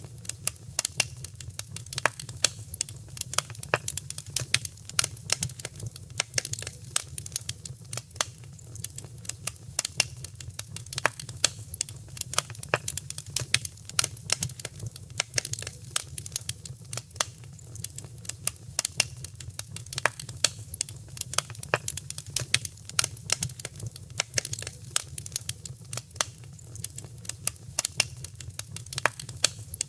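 Wood fire crackling in a fireplace: many sharp, irregular pops and snaps over a steady low rumble of the flames.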